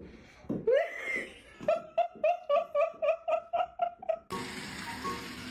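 A person laughing hard: a rising whoop, then a quick run of high-pitched ha-ha bursts, about four a second. About four seconds in it cuts off abruptly and music takes over.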